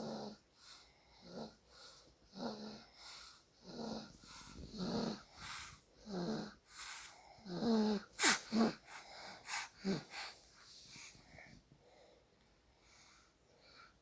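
Soft snoring in quick, regular breaths, about one snore every second and a quarter, with a few louder, wheezier snores about eight seconds in that die away near the end.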